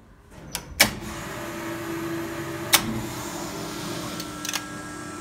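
A sharp click about a second in, then an electric motor starts and runs steadily with a low hum: the hydraulic elevator's power-unit pump running. Another click near the middle.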